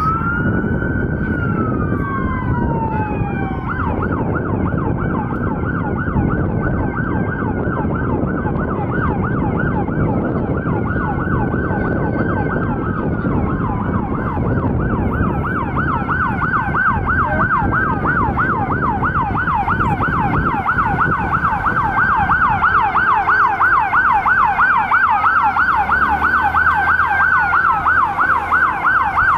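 Several emergency-vehicle electronic sirens sounding at once: slow rising-and-falling wails, then a fast yelp takes over about halfway through. A steady low rumble runs underneath.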